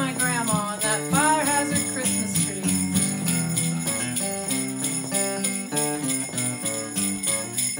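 Sleigh bell shaken in a steady rhythm, about four shakes a second, over strummed acoustic guitar chords in the closing bars of a song.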